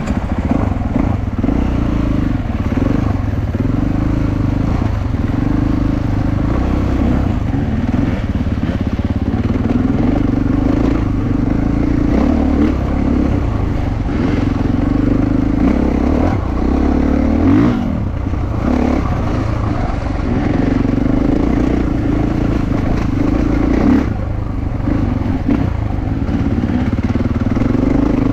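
KTM 450 four-stroke enduro motorcycle's single-cylinder engine running while riding a rough trail, its pitch rising and falling as the throttle is opened and closed, with a few brief dips off the throttle.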